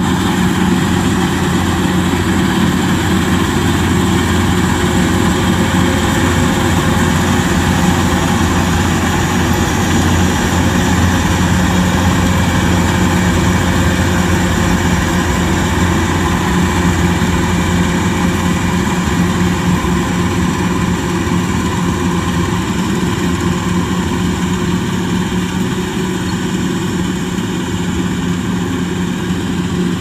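Kubota DC-105X rice combine harvester's diesel engine running steadily under load as it cuts and threshes rice: a loud, even drone with a low hum.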